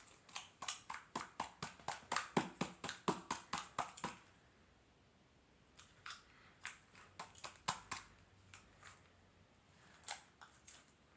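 Hands working a pack of putty and its plastic container: a quick run of small clicks and crackles for about four seconds, then a pause and a few scattered clicks.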